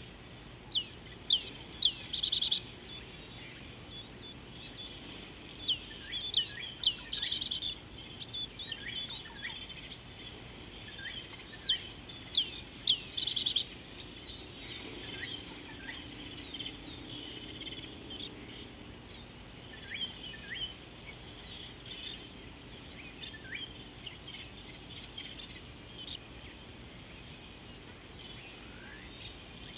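A songbird singing the same short phrase three times, roughly five seconds apart: a run of quick falling whistles ending in a fast trill. Fainter calls from other birds keep going after it stops, with the open-air background of a watering hole.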